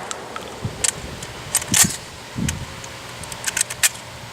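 Sharp metallic clicks and clacks of a shotgun being handled and reloaded between shots: a few scattered clicks, a louder pair a little under two seconds in, and a quick cluster of clicks near the end, with one dull thump in the middle.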